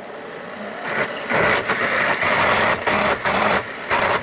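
Drill press running with a number 4 twist drill boring into a metal part held in a drill press vise. A steady high whine sits over a rough cutting noise that surges several times as the bit is fed.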